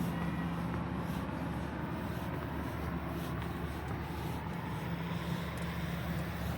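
Train running with a steady mechanical hum: one low, unchanging drone with a rumble beneath it.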